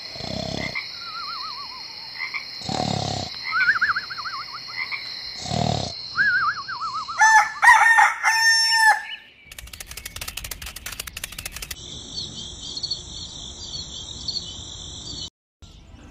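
Night-time nature sound effects: a steady high trill with three low frog croaks a few seconds apart and warbling calls between them. A rooster crows about seven seconds in, a rapid clicking follows for about two seconds, and then birds chirp until shortly before the end.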